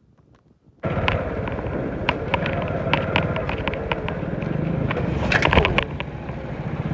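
Motorcycle running along a road, engine rumble mixed with road and wind noise, with many sharp knocks and rattles. The sound cuts in suddenly about a second in.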